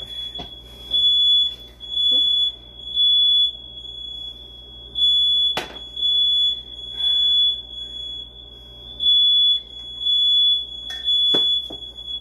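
Household smoke alarm sounding, a high-pitched beep in repeated groups of three with a short pause between groups, set off by smoke from burning incense.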